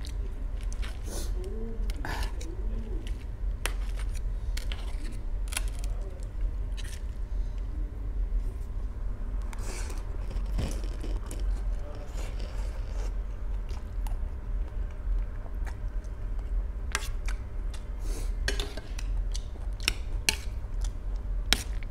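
Metal fork clinking and scraping on a stainless steel plate of noodles, with chewing between the clicks. A steady low hum runs underneath.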